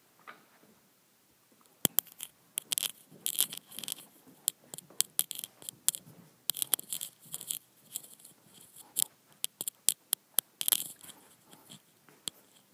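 Dog's collar tags jingling in quick, irregular clinks as a small mixed-breed dog trots down carpeted stairs and across the floor, starting about two seconds in.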